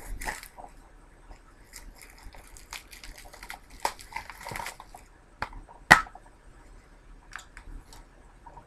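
Plastic Blu-ray case being handled: scattered small clicks and crackles, with one sharp click about six seconds in.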